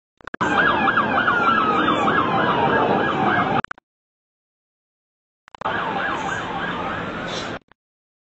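Emergency vehicle sirens sounding in a fast yelp, about four pitch sweeps a second, with a second siren gliding in pitch over noisy street background. It is heard in two stretches of a few seconds each, separated by dead silence where the footage cuts.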